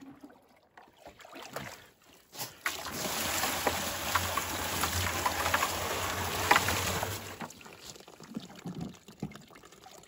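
River water poured from a yellow plastic bucket into a container below: a steady splashing gush that starts about two and a half seconds in and lasts about five seconds, with quieter knocks of the bucket before and after.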